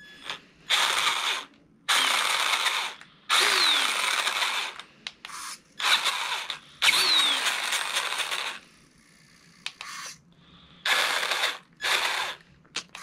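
Traxxas E-Maxx 3906 monster truck with a 775 brushed motor, revved in about seven short throttle bursts of one to two seconds with its wheels spinning in the air. Its all-steel spur, pinion and transmission idlers make a loud gear racket, and the whine falls as the drivetrain spins down after some bursts.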